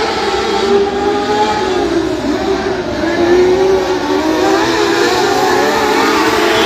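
Several mod-lite dirt-track race cars running hard, their engine notes overlapping and wavering up and down in pitch.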